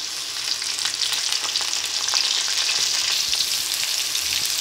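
Diced potatoes and green chillies sizzling in hot oil in a metal karahi, a steady frying hiss. A perforated skimmer spoon stirs through them with small scraping clicks.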